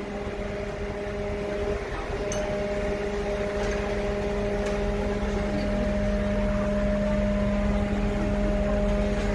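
A fire truck's engine running steadily at constant speed, a low drone that holds one pitch and grows slightly louder.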